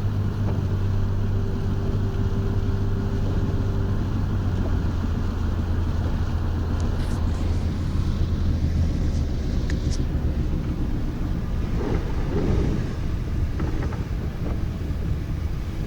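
A car driving on a rain-wet road, heard from inside the cabin: a steady low engine hum over a constant road and tyre noise.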